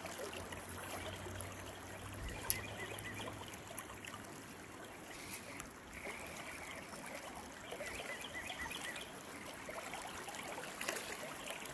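Stream water flowing steadily, with a couple of faint clicks.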